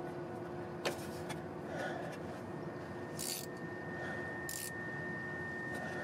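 A 13 mm ratcheting wrench being worked onto a starter solenoid's terminal nut. There is a single sharp metallic click about a second in and two short scraping hisses a few seconds later, over a steady low hum.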